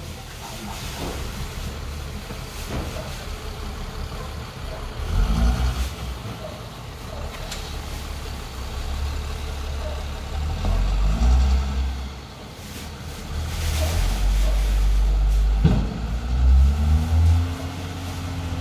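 Ford Cargo tipper truck's diesel engine running and revving in swells while the raised dump body comes down, with a few knocks and a short air hiss. Near the end the engine pitch rises as the truck pulls away.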